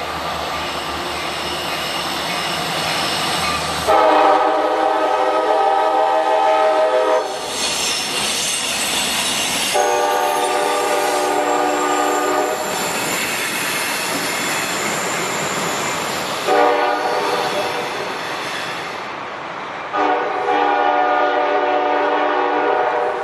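A CSX GP40-2 diesel locomotive's K5LA five-chime air horn sounds long, long, short, long, the grade-crossing signal pattern. Under it runs the steady rumble and wheel clatter of the freight train rolling by.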